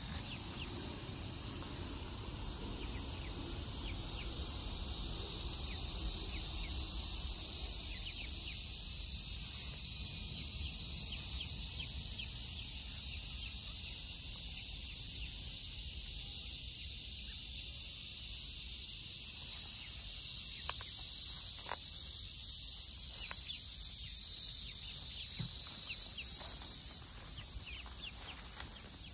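Steady high-pitched insect chorus, with scattered faint ticks and chirps in the last third, over a low rumble; the chorus drops off a little near the end.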